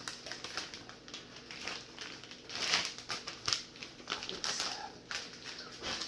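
Plastic vacuum-sealer bag crinkling and rustling as it is handled, in irregular clicks and rustles, loudest about three seconds in.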